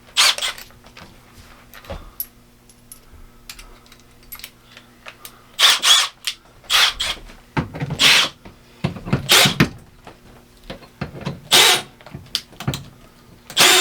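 Cordless drill backing out the screws of an RV air conditioner's metal ceiling cover, run in several short bursts with pauses between them, over a steady low hum.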